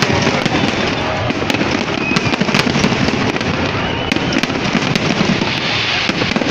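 Fireworks display: a dense, continuous crackling of many small pops and bangs from aerial shells, with no pause.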